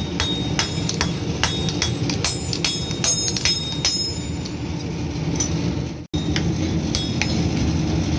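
Blacksmith's hammer striking steel on an anvil about two to three times a second, each blow ringing briefly, over a low steady rumble. The sound cuts out for an instant about six seconds in, then the hammering resumes.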